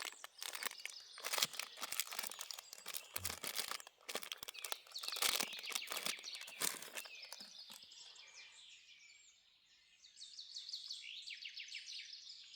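Knife packaging being crinkled and torn open by hand, a dense run of crackles that dies away about eight seconds in. A songbird then sings a quick run of repeated notes near the end.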